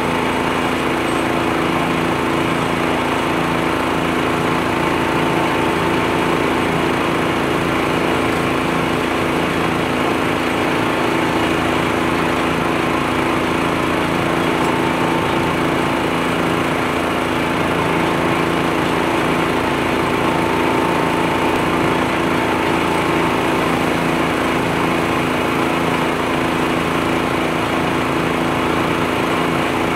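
Front-mounted U-Mount leaf blower on a John Deere 1025R compact tractor running steadily at high speed, its small engine and fan making a constant loud drone as it blows leaves. The tractor's own engine runs underneath.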